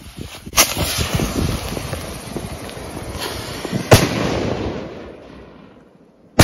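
Two black-wrapped firework tubes going off: a dense, fast crackle of many small pops, with sharp bangs about half a second in and about four seconds in. The crackle thins and fades, and another bang comes right at the end.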